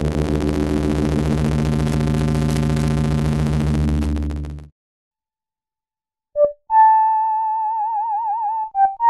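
Welson Syntex analog synthesizer with both oscillators sounding together, giving a low, buzzy sustained drone that cuts off abruptly about halfway through. After a short silence the flute preset plays one short note, then a held note that begins to waver in a vibrato, then a few short notes climbing in pitch near the end.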